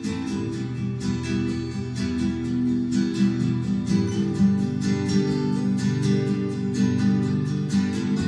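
Strummed acoustic-guitar intro of a recorded pop song, played back through Focal 1038be floor-standing loudspeakers driven by McIntosh MC452 power amplifiers.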